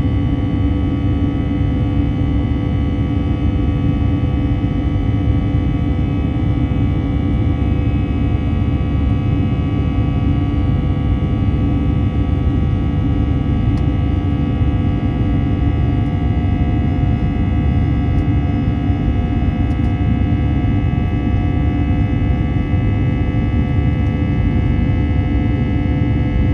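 Airbus A321 cabin noise in flight, heard from a window seat beside the wing-mounted jet engine: a steady rumble of engine and airflow with a layer of steady whining tones from the engine fan, unchanging in level.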